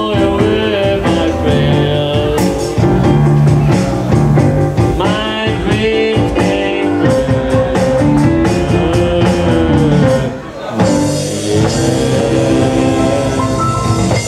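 Live band playing a blues-rock song with electric guitar and a sung vocal, with a brief lull about ten seconds in.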